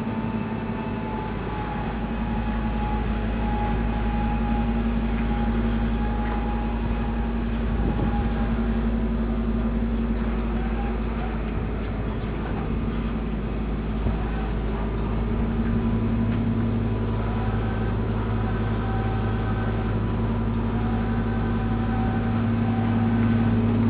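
A steady machine drone with several held tones over a low rumble, continuing without a break and getting a little louder near the end.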